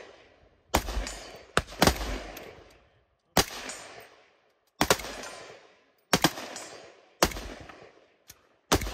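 Semi-automatic rifle fire from a CZ BREN 2 in 7.62×39 and the rifle beside it, about eight single shots at irregular intervals of roughly a second, two of them close together near two seconds in. Each shot is sharp and dies away in an echoing tail of about a second.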